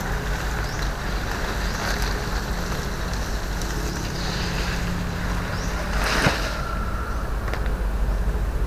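Steady low rumble with a faint hum under it, and a brief dry rustle about six seconds in as a coconut frond is moved across the ground.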